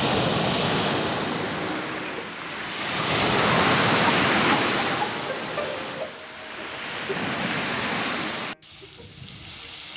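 Sea waves surging and breaking on the shore, a steady rushing wash that swells louder about three seconds in. About eight and a half seconds in it cuts off abruptly to a much quieter background.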